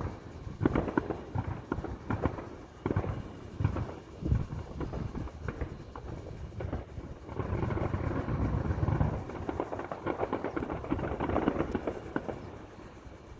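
Aerial fireworks going off: a rapid, irregular run of bangs and pops, then a denser stretch of continuous crackling and rumbling about halfway through that fades near the end.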